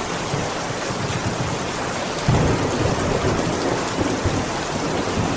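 Heavy rain falling steadily on a window, with a low rumble of thunder swelling about two seconds in.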